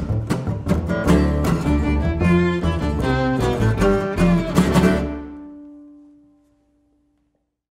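Acoustic string trio of fiddle, upright double bass and acoustic guitar playing the last bars of a roots/bluegrass tune. About five seconds in the playing stops and the final chord rings out and fades to silence, one low note lingering longest.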